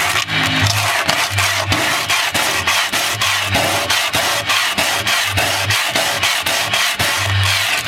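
Hand sanding a wooden hull surface with coarse 80-grit sandpaper: rapid back-and-forth rubbing strokes, a continuous rasping scratch.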